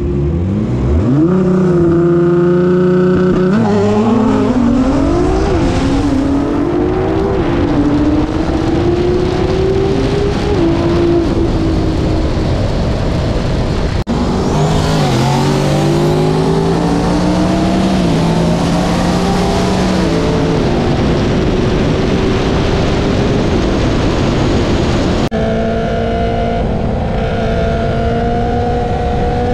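Performance-car engines at full throttle in street races. From a standing start the engine revs climb and drop back at each upshift, about four times. After a cut comes a high-speed roll race with more climbing pulls and upshifts. Near the end a steadier engine note begins to rise again.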